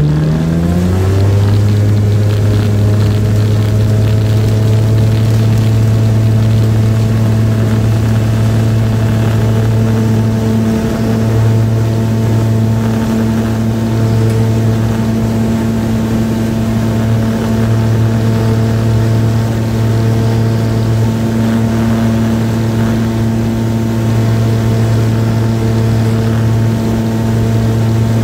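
X-Air microlight's engine and propeller at full takeoff power. The pitch climbs over the first second or so as the power comes up, then holds steady.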